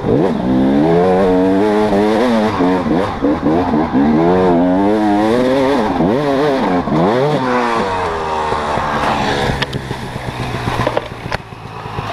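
Dirt bike engine revving up and down again and again under the rider's throttle, heard from a helmet camera. Over the last few seconds the engine note drops and gets rougher, with a couple of sharp knocks and a dip in loudness near the end.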